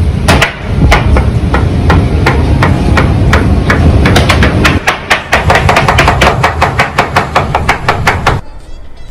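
Knife chopping meat on a cutting board: rapid repeated chops, about three a second, speeding up to about five a second halfway through, then stopping abruptly near the end, over a steady low rumble.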